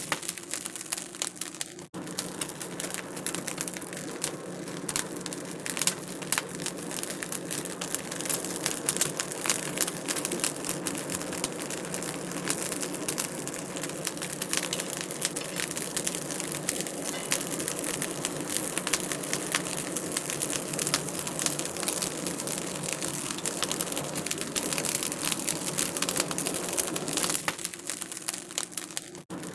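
Wood fire crackling in a fireplace, a steady run of many small pops and snaps, with a brief drop in sound about two seconds in and again near the end.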